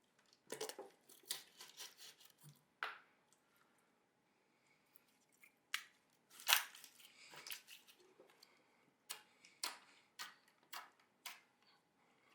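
Store-bought slime being squeezed and poked by hand, giving sharp clicks and crackling pops in irregular clusters, with a short lull in the middle and a row of separate clicks near the end.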